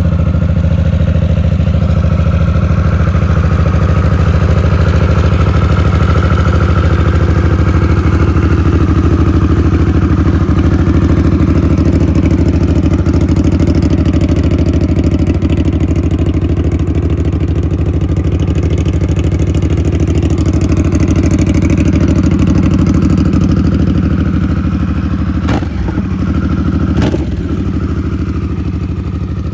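Harley-Davidson Sportster S's 1250 cc liquid-cooled V-twin idling steadily through an aftermarket muffler. It gets slightly quieter near the end, where two brief knocks are heard.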